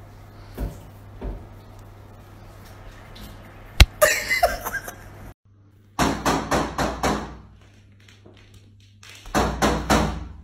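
Kookaburra rapping its beak against a window pane: two bursts of quick knocks on the glass, about a second each and a couple of seconds apart. Before them comes a single sharp click and a brief scuffle.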